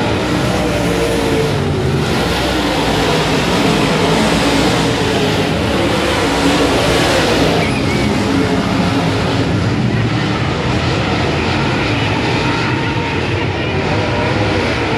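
A field of dirt late model race cars' V8 engines running loud and continuously at racing speed, the engine notes rising and falling as cars go past.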